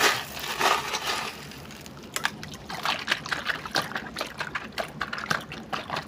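A hand rummaging through wet gravel in a plastic toy dump truck bed, the small stones scraping and clicking many times in quick succession, with water splashing as a toy is pulled through a puddle.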